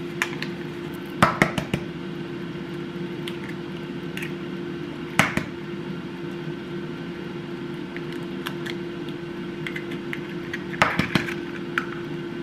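Eggs cracked on the rim of a ceramic mixing bowl: sharp knocks about five seconds in and again near the end, with a few lighter taps about a second in. A steady low hum runs underneath.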